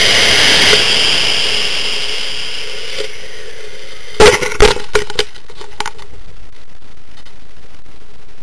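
Onboard camera in a climbing model rocket: the motor's loud rushing hiss, which began at liftoff, fades away over the first three seconds. About four seconds in comes a quick cluster of sharp knocks and pops, then only a steady faint hiss of air.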